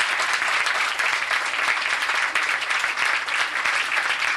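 Dinner guests applauding: dense, steady hand-clapping from a room full of people.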